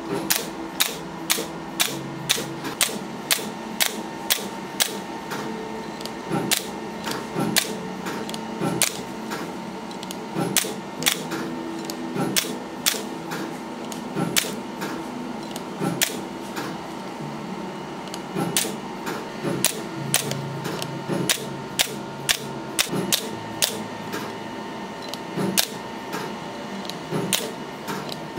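Candela GentleMax Pro hair-removal laser firing pulse after pulse as the handpiece moves over the face, each pulse a sharp snap, about two a second.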